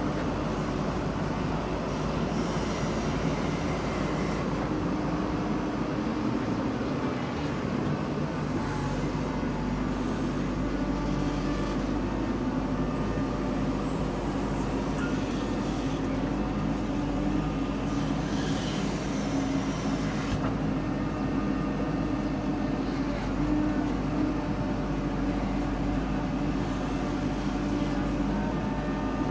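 Diesel engine of a JCB 3DX backhoe loader running steadily under working load while loading mud.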